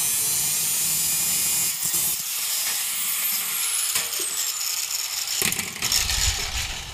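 Angle grinder with a thin cutoff wheel cutting through a steel brake dust shield, a loud steady grinding hiss. A few seconds in the trigger is released, and the grinder winds down with a slowly falling whine.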